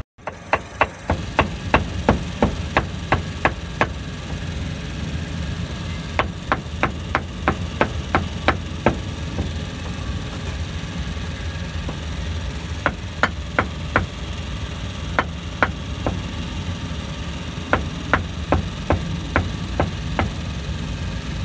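Cleaver chopping on a wooden chopping block in runs of quick strokes, about three a second with short pauses between runs, over a steady low engine hum.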